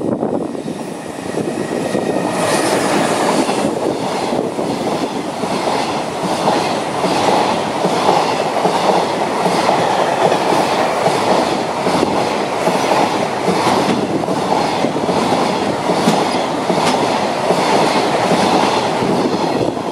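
A container freight train hauled by an EH500 electric locomotive passes at speed. The locomotive goes by about two seconds in, then the container wagons keep rolling past with a steady rush and a rhythmic clickety-clack of wheels over the rail joints.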